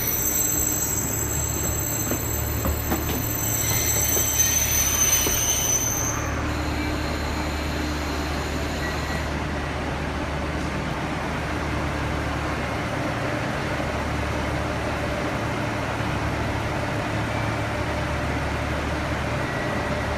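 Diesel railcar train on the Kisei Main Line, its wheels squealing in high tones for about the first six seconds, then a steady rumble of the train running.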